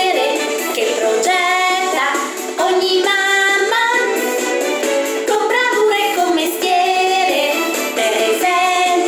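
Children's song for mothers sung by a woman's voice over backing music, with children's voices in the mix.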